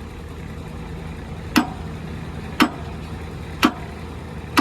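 Four sharp knocks, about one a second, with a short ring after some of them, over the steady low hum of the Komatsu PC210 excavator's idling diesel engine.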